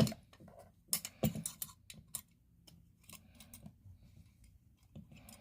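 Sharp plastic-and-metal clicks and knocks of a Gamewell Century fire alarm pull station being handled, loudest at the start and again about a second in, then fewer and fainter.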